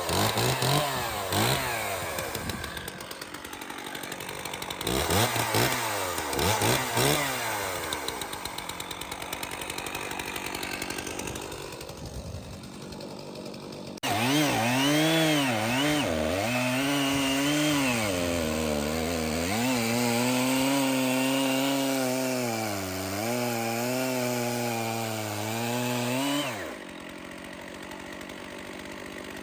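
Stihl 066 two-stroke chainsaw being blipped and revved up and down, then running flat out under load as it cuts into a large red oak log, its pitch sagging and recovering as the chain bites. Near the end it drops suddenly back to a quieter idle.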